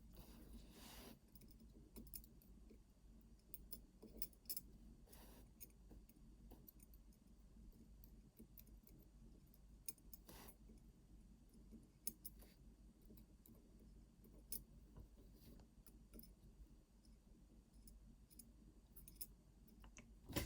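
Faint, irregular small clicks of the lock's tiny metal pins and parts being handled, over near silence.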